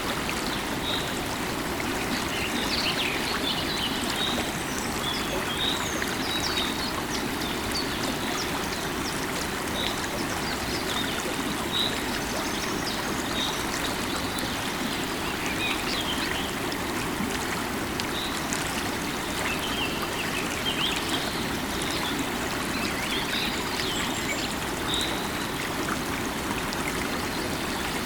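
A river of running water flowing steadily, with birds chirping in short calls every second or two over the rush of the water.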